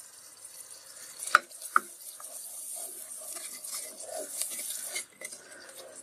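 Spatula stirring a thick spice paste as it fries in oil in a non-stick pot, with a soft sizzle and scraping. Two sharp knocks on the pot come about a second and a half in.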